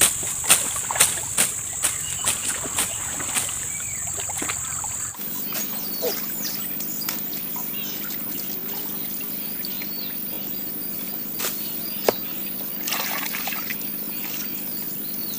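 Rubber boots wading through shallow muddy stream water, a splashy step about every half second, over a steady high-pitched insect drone. About five seconds in the sound cuts to a quieter scene with soft water trickling and a repeating high insect chirp.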